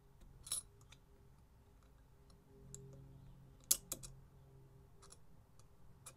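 Metal parts clicking and knocking as a gasketed piece is worked by hand onto an aluminium pit-bike cylinder head: a click about half a second in, a sharper double click near four seconds, and faint ticks in between. A faint steady low hum runs underneath.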